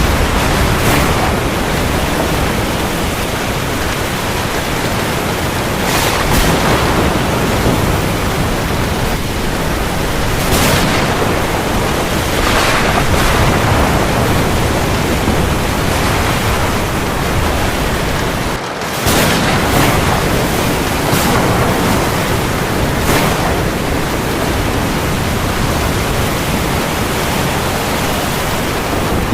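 Heavy rain falling on the sea, a dense steady hiss that swells louder every few seconds. The sound dips briefly about two thirds of the way through, then resumes.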